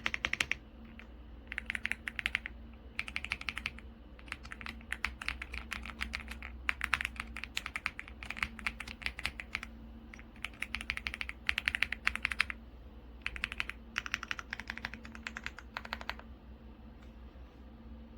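AULA F75 Pro mechanical keyboard with pre-lubed Reaper switches being typed on in bursts of rapid keystrokes, each run lasting a second or two with short pauses between.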